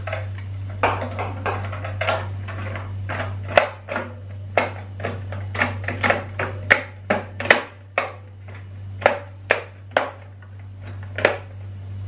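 Plastic cover frame of a microwave door being pressed into place by hand, its clips snapping in as a long, irregular series of sharp clicks and taps over a steady low hum.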